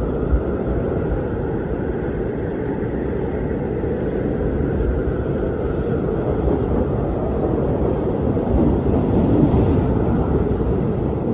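Howling wind: a steady low rushing rumble with a faint wavering whistle above it, swelling a little about nine seconds in.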